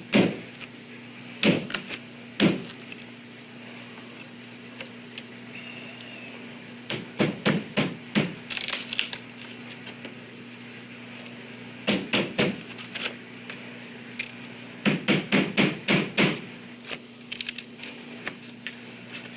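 A hammer striking a screwdriver used as a makeshift chisel, cutting into a wooden door jamb to enlarge the strike plate recess. The blows come in quick runs of several sharp taps with pauses between, and there is a brief scrape about halfway through.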